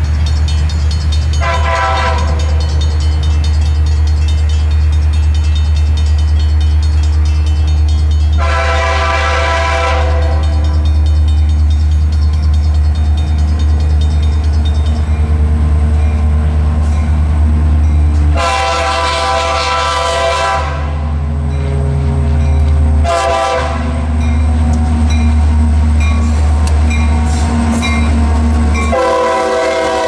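CSX GP60 diesel locomotive's Nathan K5LA chime air horn sounding a series of blasts as the train approaches: long blasts about 2, 9 and 19 seconds in, a short one, then another long one near the end, over a steady low rumble. Near the end the loaded rock hopper cars are rolling past.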